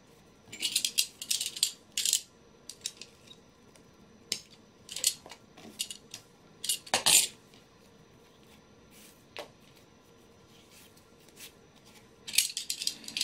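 Scattered short clicks and crisp crackles from a snap-off utility knife cutting and picking at a small piece of thin leather and from the piece being handled. There are clusters early on, the sharpest click about seven seconds in, and a quick run of clicks near the end.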